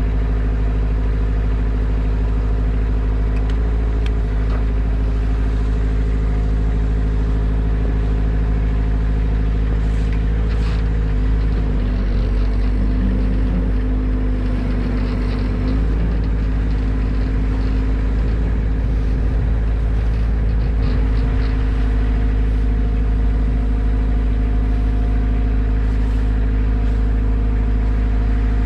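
A large engine running steadily at idle, its pitch shifting briefly about twelve seconds in before settling back to the same steady note.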